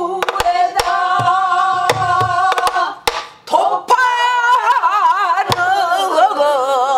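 Female pansori singer drawing out a long, melismatic sung line with a wide, wavering vibrato that deepens toward the end, accompanied by her own buk barrel drum: sharp stick clicks and a few deep thuds at irregular points.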